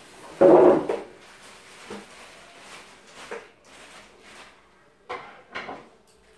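Cardboard boxes and packing being handled and shifted: a loud scrape about half a second in, softer knocks and rustles after it, and two more short scrapes near the end.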